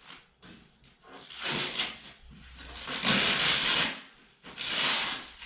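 Unboxing packaging being handled: three bursts of rustling and scraping, the middle one the longest and loudest.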